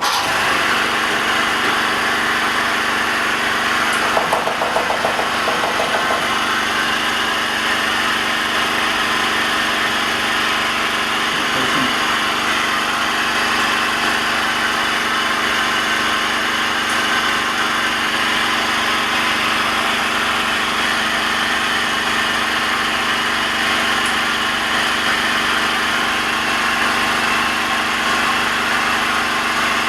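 A motor-driven machine starts abruptly and runs with a steady, loud hum and hiss.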